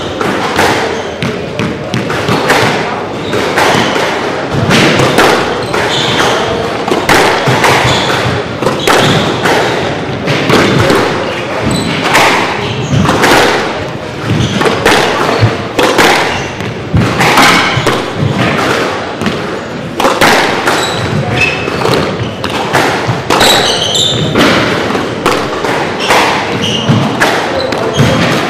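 Squash rally: the ball is struck by rackets and smacks off the court walls in repeated sharp thuds, about one to two a second, with a few short high squeaks.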